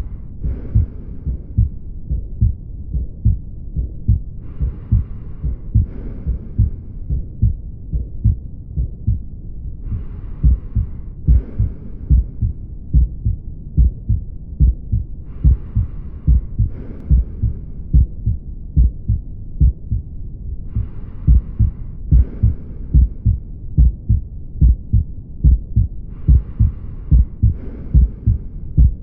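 Heart sounds heard through a stethoscope: a steady run of low thuds, with a rush of breath noise about every five and a half seconds, a longer stretch followed by a shorter one.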